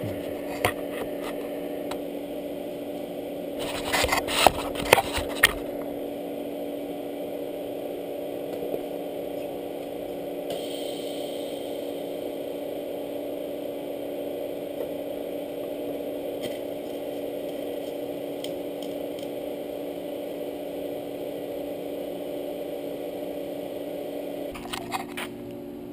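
TIG welder humming steadily while welding a joint on 4130 chromoly steel tube, filling it on an uphill pass. Brief loud crackling about four to five seconds in, and the hum stops shortly before the end.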